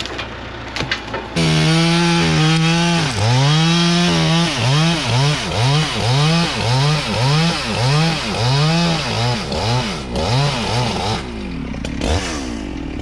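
Chainsaw running at full throttle, then its revs dip and recover again and again, about every two-thirds of a second, before dropping off near the end.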